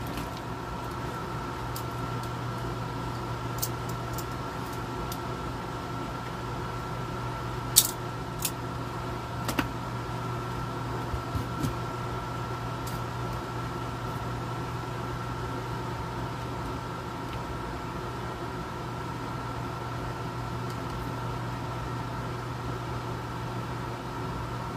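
Steady hum of a room air conditioner running, with a few small clicks of tools and parts being handled on the bench, the sharpest about eight seconds in.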